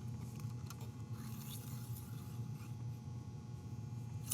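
Faint rubbing and scraping from handling cleaning gear, over a steady low hum, with a short click near the end.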